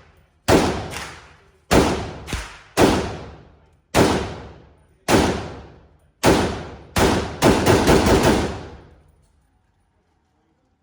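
Gunshots fired at a shooting range: single shots roughly a second apart, then a quick string of about five shots near the end, each followed by a long echoing decay.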